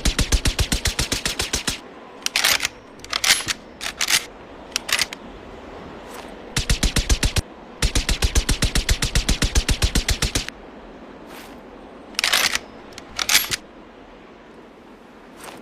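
Sten Mk IIS suppressed submachine gun firing automatic bursts at about ten rounds a second: a short burst at the start, a brief one midway and a longer one after it. Between the bursts come several separate short, sharp clacks.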